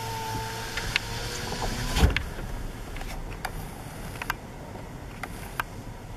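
Vehicle noise heard from inside a car, with a thin whining tone in the first two seconds, scattered clicks, and a thump about two seconds in. The noise quietens about three seconds in.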